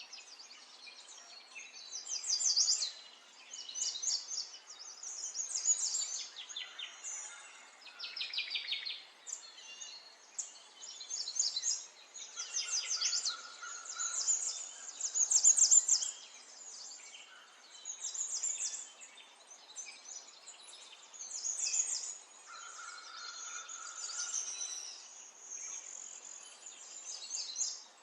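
Small songbirds singing: short, rapid trilled phrases one after another every second or two, with a few lower held notes between them.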